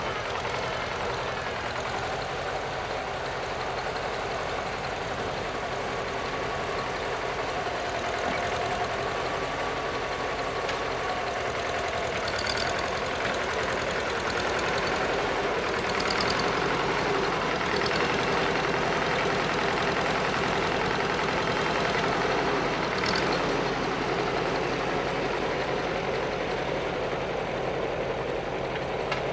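Farmall Super C tractor's four-cylinder engine running steadily as the tractor drags loose dirt to level it.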